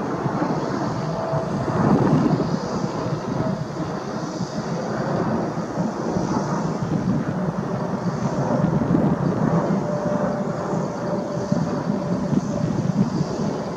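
Boeing 787 Dreamliner's GEnx turbofan engines at climb power shortly after takeoff, passing overhead as a steady, deep jet rumble with a faint high whine.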